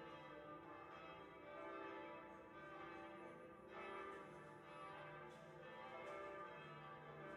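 Church bells ringing faintly, a fresh stroke about every two seconds over a long, lingering ring.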